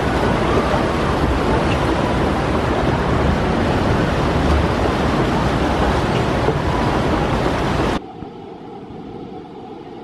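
Rushing whitewater in a river rapids ride's concrete channel, loud and steady. About eight seconds in it cuts abruptly to a quieter rush of water.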